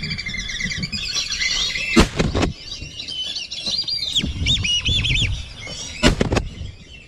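Whistling ducks calling, many high squeaky whistles overlapping. Two loud sharp bangs come about two seconds in and about six seconds in.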